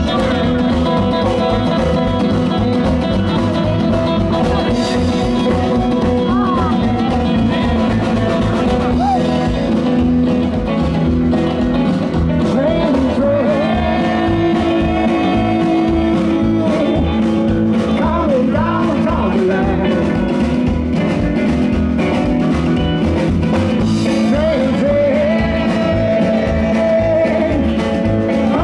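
Live rock and roll band playing a blues-rock number: guitar, bass and drums over a steady beat, with a blues harp wailing held and bent notes.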